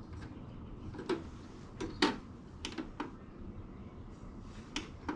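Irregular light clicks and knocks of something being handled, about eight in all, the loudest about two seconds in.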